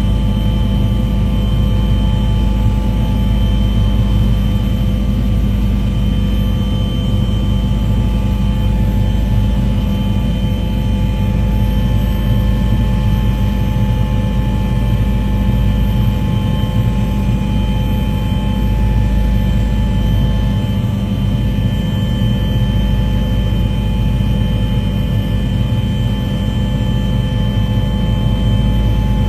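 Steady drone of an aircraft engine: a constant deep rumble with several fixed tones above it.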